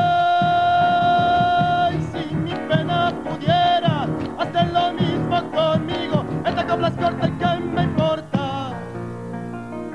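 A man sings an Argentine folk song to his own acoustic guitar with band accompaniment. He holds one long note for about two seconds, then sings phrases with vibrato. His voice stops near the end, leaving the instruments playing.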